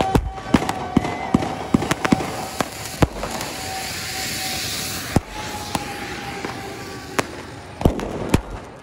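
Firecrackers going off in sharp, irregular bangs, several a second at first, over the hissing spray of ground fountain fireworks; the hiss is strongest midway.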